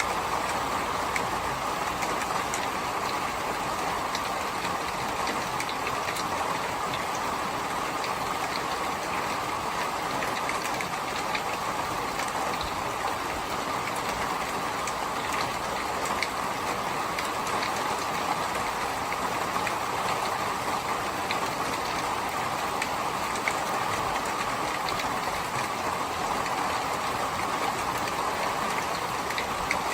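Steady rain: an even, unbroken hiss with scattered small drop ticks.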